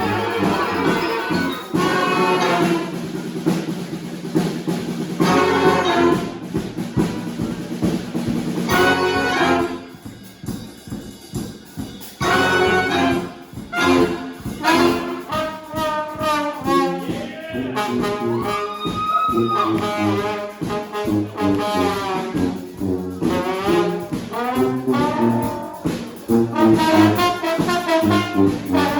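Brass band playing live: trumpets and trombones over a steady beat. The band drops quieter for a couple of seconds about ten seconds in, then comes back in full.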